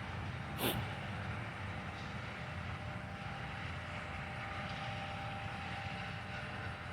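Combine harvester engine running steadily in the field, a low rumble with a faint thin whine over it. A brief falling chirp sounds just over half a second in.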